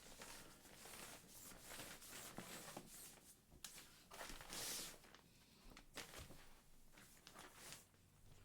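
Faint rustling and crinkling of an inflatable camping mat's fabric as it is pressed flat to push the air out through its open valve, with a louder brief swish about four and a half seconds in.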